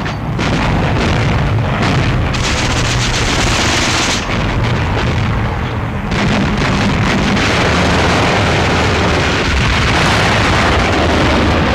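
Newsreel battle soundtrack: a continuous, loud, dense roar of gunfire and explosions with a heavy low rumble.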